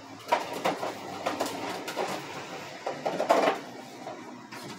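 Irregular light clicks and rustles of hands working in a plastic bowl, as bay leaves go into the meat seasoning and it is mixed. The sharpest knock comes a little past the middle.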